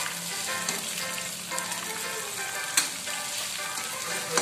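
Batter-coated catfish deep-frying in a wok of hot oil, sizzling steadily, while a spatula scrapes through the pan to press the crispy batter crumbs together around the fish. There are two sharp knocks of the spatula against the wok, one a little under three seconds in and one at the end.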